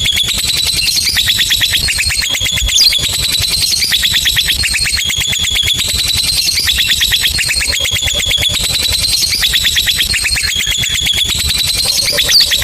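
Lovebird giving a long 'ngekek' song: a fast, high-pitched chattering trill of rapid repeated notes that goes on unbroken, in repeating phrases.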